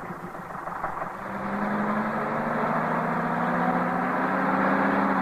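Bus engine running as the bus drives along, a steady low drone that grows louder about a second in.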